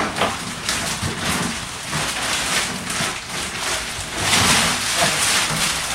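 Plastic packaging wrap crinkling and rustling as it is pulled off a shaved ice machine, with a sharp click at the start.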